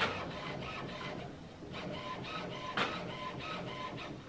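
HP Envy Photo 7155 inkjet printer calibrating, its mechanism working in a quick, regular rhythm of short pulses several times a second, not very loud. There is a sharp click at the start and another near three seconds in.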